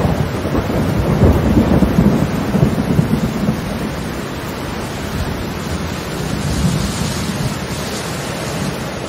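Steady rain with a low rumble of thunder that is strongest about one to three seconds in, then eases into a steady downpour.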